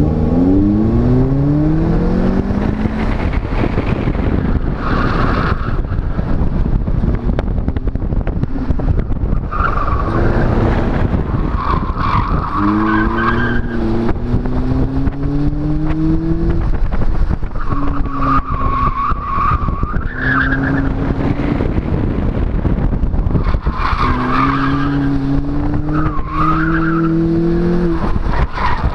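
Car engine accelerating and easing off through an autocross cone course, with tires squealing in several stretches through the turns. Heavy wind rush on the outside-mounted camera microphone.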